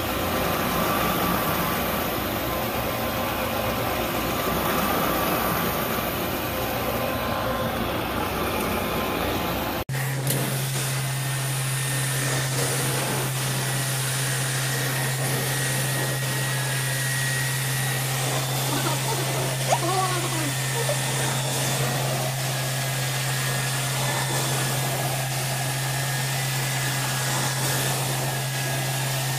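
Carpet cleaning machinery running steadily with a rushing noise. About ten seconds in, the sound cuts abruptly to a hot-water extraction wand's suction, with a steady low hum under it.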